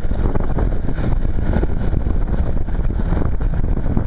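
Motorcycle riding along: steady wind rush on the microphone with the engine running underneath.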